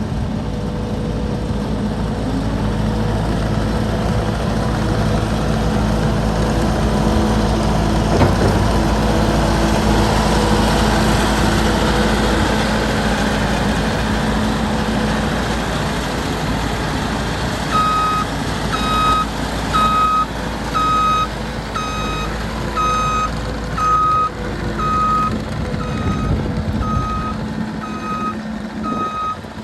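Kubota SVL75-2 compact track loader's diesel engine running, with a single clunk about eight seconds in. Around the middle its backup alarm starts beeping about once a second as the machine reverses, and the engine's low rumble drops away near the end.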